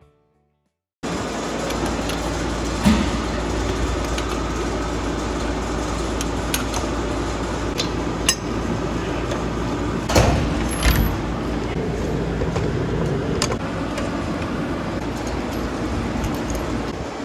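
A few sharp metallic clicks and clinks of lug nuts being threaded by hand onto a steel wheel's studs, over a steady low hum and hiss, starting about a second in.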